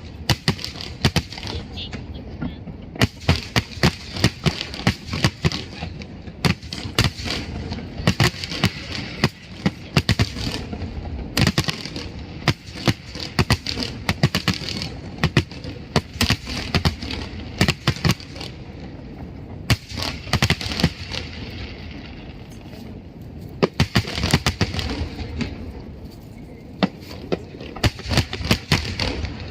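Fireworks display: rapid, dense volleys of bangs and crackling bursts, with a thinner spell a little after the middle before another flurry near the end.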